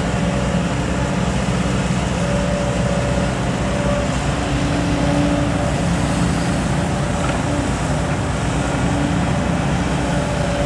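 Large diesel dump truck engine running steadily at constant speed, a low even hum with a faint higher tone coming and going.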